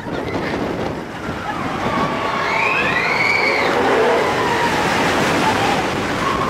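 Vekoma roller coaster train running on its track, with rumble and wind rush on the microphone, and a brief cry that rises and falls in pitch about three seconds in.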